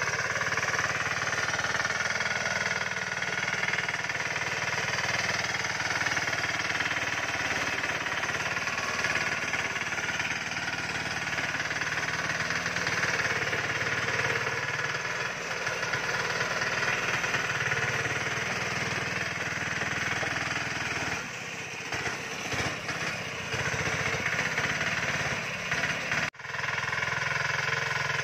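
Small engine of a homemade all-terrain vehicle running steadily as it drives through dense grass and brush. It eases a little in the last few seconds, with one brief dropout near the end.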